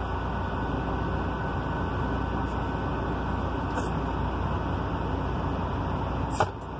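Steady low running hum inside a semi-truck cab, with a faint click about four seconds in and a sharper click near the end.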